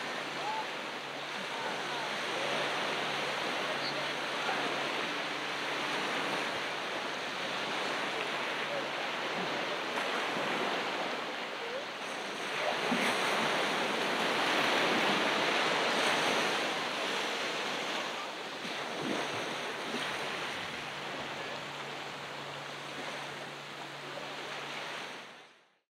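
Ocean surf washing onto a beach, a steady rush of breaking waves that swells louder about halfway through as a bigger wave comes in, then fades out at the very end.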